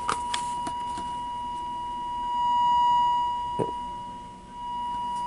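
Steady test tone from a signal generator, played through the repaired Samson Q5 headphone amplifier into headphones; the amp is passing signal again. The tone swells louder a little after two seconds in, fades away before the fifth second and comes back, with a few light clicks at the start and a knock about three and a half seconds in.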